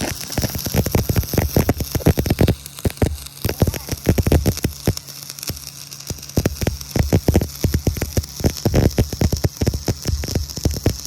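Stick welding arc on steel bar, crackling irregularly and densely over a low steady hum.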